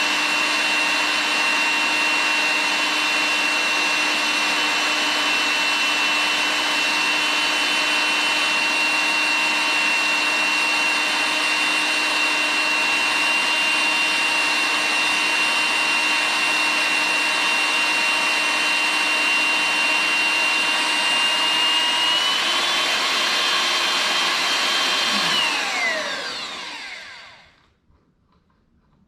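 Electric power tool's motor running steadily at high speed with a constant whine. Near the end its pitch lifts slightly, then it winds down and stops.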